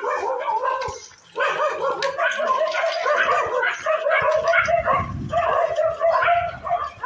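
Several street dogs barking and yelping over one another in a fight. The calls pause briefly about a second in, then run on without a break.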